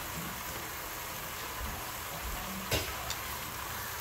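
Ground venison and potato pieces frying in oil in a nonstick pot, a steady sizzle as the meat browns. A single sharp knock comes about two and a half seconds in.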